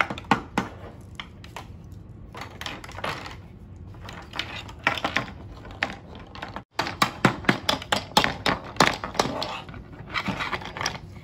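Plastic toy tools and building pieces clicking and knocking together in irregular taps: a plastic toy hammer striking pegs in a plastic pegboard, and plastic bolts and nuts being fitted and turned. There is a brief break in the sound a little past halfway.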